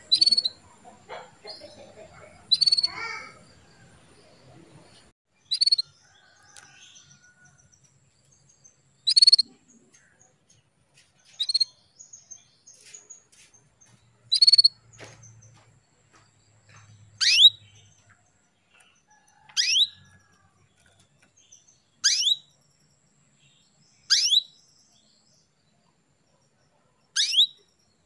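Female canary calling to males: about eleven short single chirps, spaced two to three seconds apart. The later calls are quick downward-sweeping notes.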